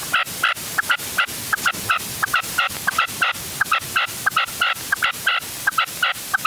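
Red-legged partridge calling: a fast, even series of short call notes, about three or four a second.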